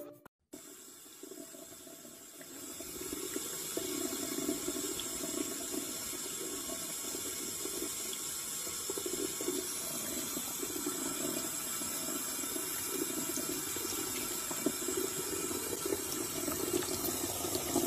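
A tap running a thin stream of water into a mug filled with water, a steady splashing trickle that grows louder about two and a half seconds in.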